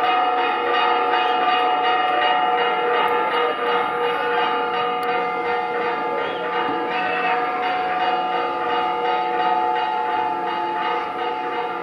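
Church bells rung by hand, several bells struck in quick succession over and over, their tones overlapping and ringing on in a continuous peal.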